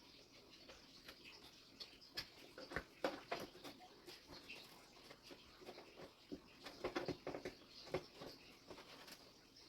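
Scattered small clicks, taps and scrapes of hands plugging and routing cables inside a computer case, with bunches of quick handling noises around two to three seconds in and again around seven to eight seconds in.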